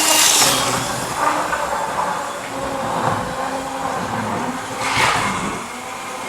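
An old OO gauge model diesel locomotive running flat out on its track: a steady electric motor whine with wheels rattling over the rails. It grows louder as it passes close by, once at the start and again about five seconds in.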